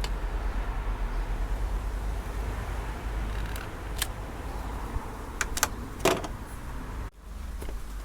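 A few sharp clicks and snaps of hand tools and car wiring being handled, the loudest about six seconds in, over a steady low rumble.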